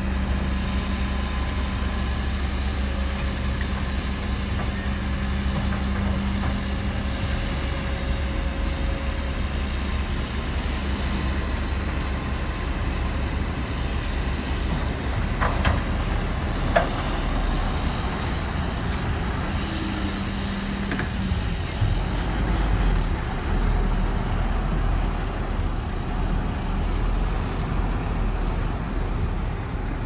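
Heavy diesel earthmoving machinery running steadily with a low engine rumble and a steady hum, with two sharp clanks about a second apart halfway through.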